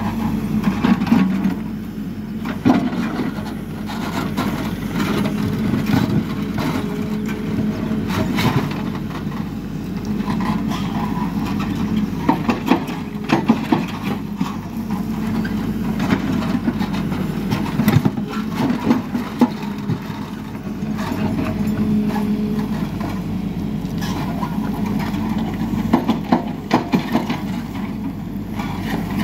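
Hidromek backhoe loader's diesel engine running under load as the rear backhoe digs, its note swelling and easing with each stroke of the arm, with frequent knocks and clatter from the bucket and soil.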